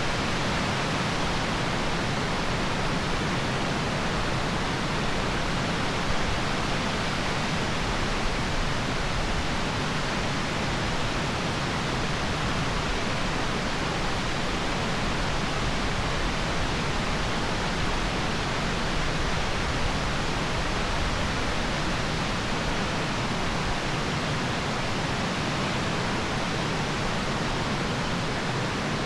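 Rushing water running steadily, a constant even hiss with no breaks or distinct events.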